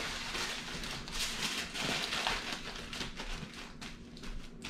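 Aluminum foil crinkling and crackling irregularly as it is folded and pressed by hand around sandwich buns.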